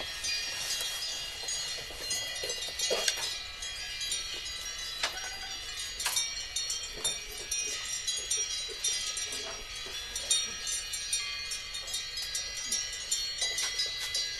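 Metal bells ringing irregularly, many overlapping high tones with scattered sharper strikes.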